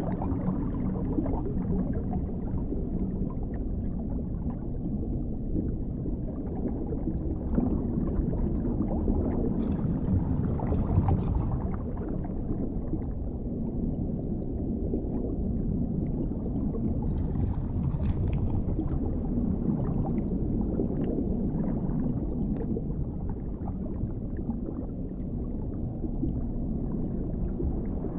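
Underwater ambience: a steady low rumble of muffled water movement, with faint scattered crackles and gurgles.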